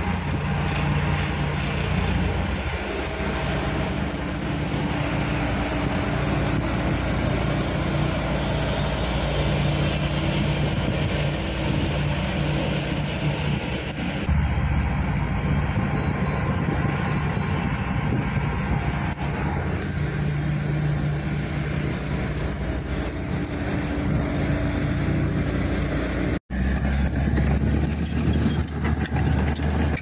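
Heavy diesel engine of a loaded dump truck running steadily as it drives. About three-quarters of the way through, the sound breaks off for an instant and resumes with a deeper, stronger engine note.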